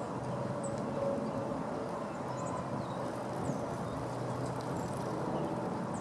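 Steady low rumble of distant road traffic, with a few faint, short, high bird chirps over it.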